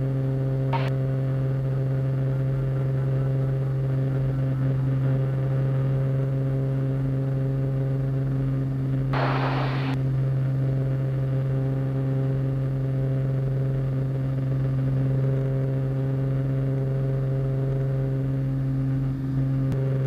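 Cessna 210 Centurion's Continental flat-six engine and propeller droning steadily in the cabin during the climb, with a brief hiss about nine seconds in.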